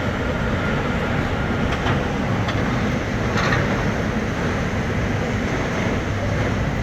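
Heavy diesel engine of a Bauer BG42 rotary drilling rig running steadily with a deep rumble, with a few short metallic clanks about two to three and a half seconds in.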